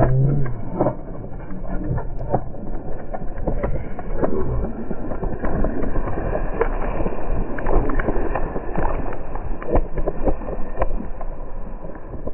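Wind and road noise on a bike-mounted camera's microphone while riding a bicycle on asphalt, a steady muffled rush full of small knocks and rattles. A brief voice sound comes right at the start.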